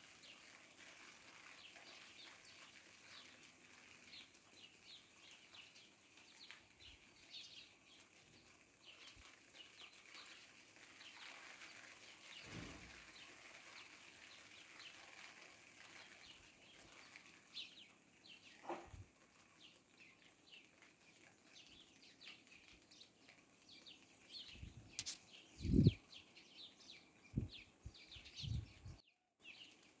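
Many small birds chirping over a steady soft hiss of rain. Several low thuds come through, the loudest about 26 seconds in, and the sound cuts out for a moment near the end.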